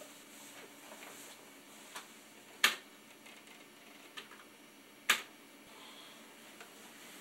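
Quiet room tone broken by a few sharp clicks; the two loudest come about two and a half seconds apart, with fainter ticks between them.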